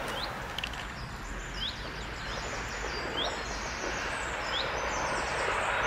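Bird chirps, short sweeping calls repeated about every second and a half, over a steady outdoor wash of noise. The wash grows slowly louder near the end as an approaching jet airliner, a Boeing 737, comes closer.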